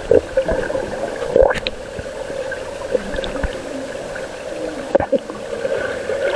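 Water gurgling and splashing, with a few sharp knocks.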